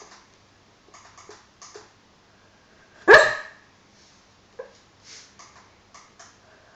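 A sleeping Labrador Retriever barking in a dream: one loud, short woof about three seconds in, with short soft puffs of breath and small sounds scattered around it.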